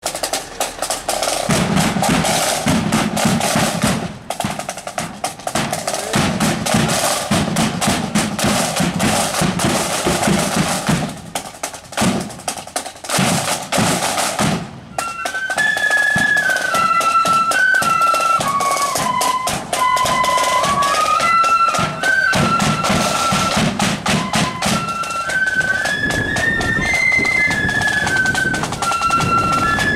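Music: rapid drumming, joined about halfway by a high melody of held notes stepping up and down over the drums.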